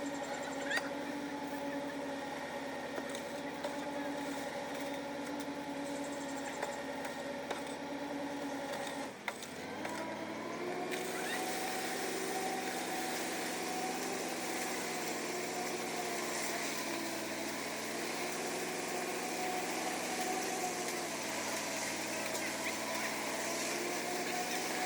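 Engine of construction machinery running steadily. About nine seconds in, the sound breaks off and gives way to a different engine at a higher, slightly wavering pitch.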